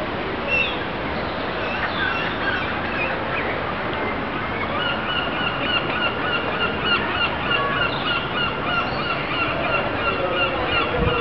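A penguin braying: a run of short, evenly repeated honking notes, about two to three a second, starting a little under halfway in, over steady background noise.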